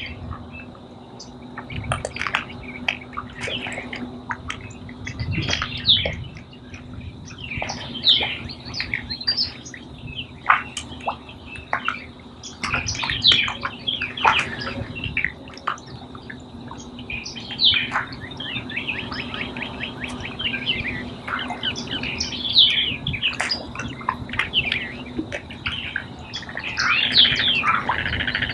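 Wild birds calling: many overlapping short chirps and quick downward-slurred whistles, with louder calls standing out every few seconds, over a faint steady low hum.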